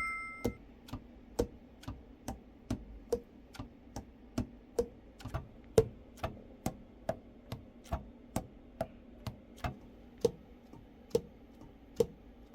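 Steady, even ticking at about two ticks a second, like a clock or metronome.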